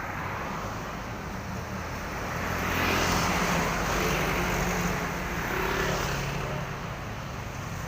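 A bus passing close by on the road: its engine drone and tyre noise swell to a peak about three seconds in, then ease off slowly.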